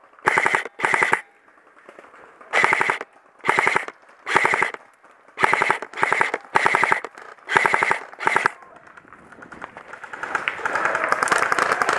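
Airsoft rifle firing about ten short full-auto bursts, each about half a second of rapid clicks, over the first eight seconds or so. Near the end a dense, continuous crackle of clicks builds up.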